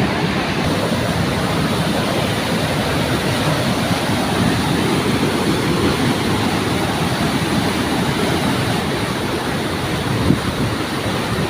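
Steady rushing roar of a waterfall, a continuous even wash of falling water.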